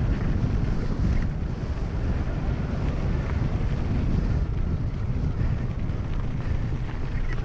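Wind buffeting the microphone of a camera on a mountain bike ridden at 20–30 mph, a steady low rumble, with the tyres rolling over dirt and gravel.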